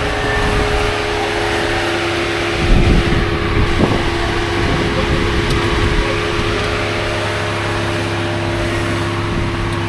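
Off-road vehicle's engine running steadily while it works over an obstacle on the trail, with two knocks a little under three and four seconds in.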